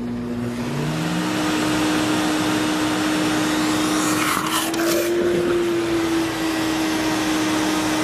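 Sirena water-based vacuum cleaner running, its motor whine climbing in the first second and then holding steady as it sucks a glass of water up through the hose in wet-pickup mode. About halfway through, a brief rush marks the water being drawn up, and the motor pitch lifts slightly.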